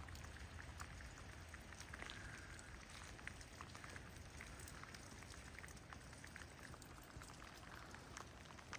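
Faint patter of light rain, with scattered small drips ticking irregularly.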